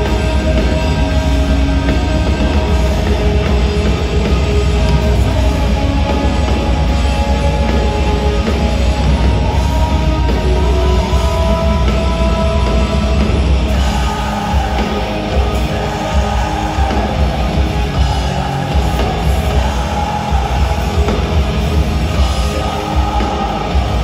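Live metal band playing distorted electric guitars, bass and drums at full volume, heard from the audience in a large hall. About fourteen seconds in the sound changes, the deep bass thinning and the guitars coming forward.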